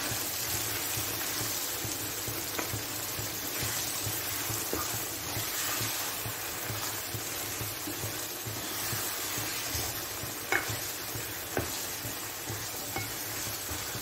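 Mutton in green chilli, coriander and mint masala sizzling in oil in a frying pan while a spatula stirs it through, a steady hiss with a few sharp taps of the spatula on the pan, the two loudest about a second apart near the end.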